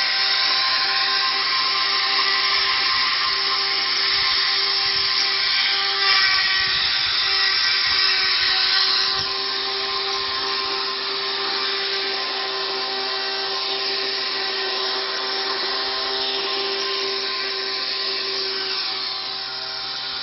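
Electric motors of a homemade Arduino-controlled robot lawn mower running with a steady whine over a hiss, a little quieter after about nine seconds.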